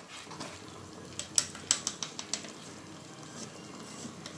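A wire whisk scraping and tapping against a metal pot while chocolate cake batter is poured out of it: a run of light clicks, mostly in the first half.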